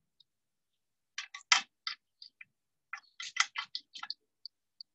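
Sharp metallic clicks and clinks of small steel parts being handled and fitted into the delivery valve holders on top of an inline diesel fuel injection pump. They come in two irregular clusters, about a second in and about three seconds in, with a few faint ticks after.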